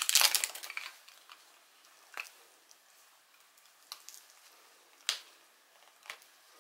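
Thin plastic film crinkling as it is peeled off a small hard plastic earphone case, dying away about a second in. After that, four light clicks as fingers handle the plastic case.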